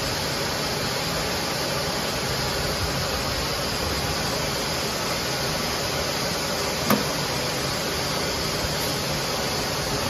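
Steady running noise of a spiral corrugated EVA hose extrusion line, an even mechanical hum and hiss, with a single short knock about seven seconds in.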